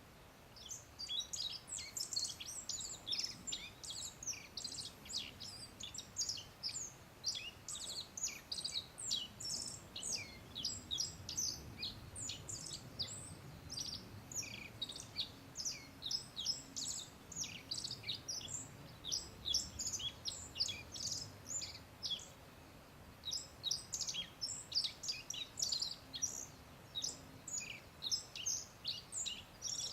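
Black-faced bunting chirping: a quick, continuous run of short, high notes, with a brief break a little past two-thirds of the way through.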